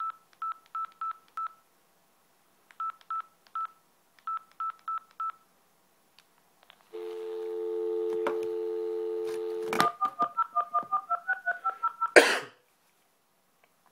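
Mobile phone keypad beeping as a number is keyed in: two runs of short beeps at one pitch. About seven seconds in comes a steady dial tone lasting about three seconds, then a fast run of about fifteen two-note touch-tone dialing beeps, ending in a loud thump.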